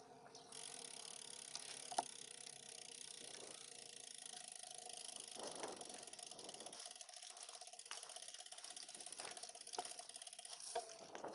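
Bicycle rear-hub freewheel clicking in a fast, steady buzz as the wheel turns without pedalling, with a few sharp clicks on top, the loudest about two seconds in.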